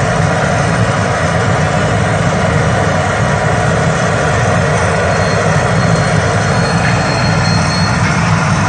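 Potato chips deep-frying in hot oil in a large iron wok: a steady sizzle over a low, constant roar.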